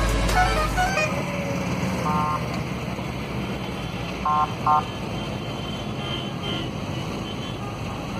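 Volkswagen Kombi van driving slowly in traffic, heard from inside, with a steady rumble of engine and road noise. Short car-horn toots sound once at about two seconds, then twice in quick succession a couple of seconds later. A bass-heavy music track cuts off within the first second.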